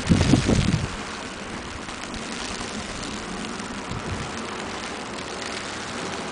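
Wind buffeting the microphone for about the first second, then a steady outdoor rush of noise.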